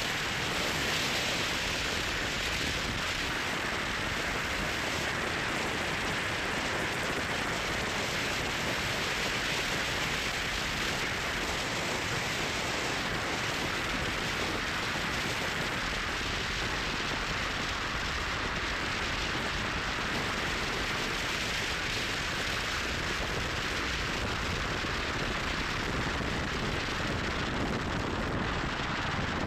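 Steady road and wind noise of a moving car, an even hiss that holds level without a break.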